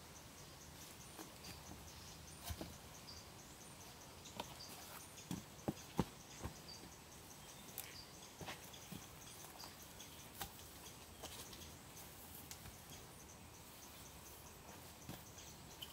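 Scattered wooden knocks and thuds as log posts are handled and set against the shelter's frame, the loudest around six seconds in, over a steady, rapid chirping of insects.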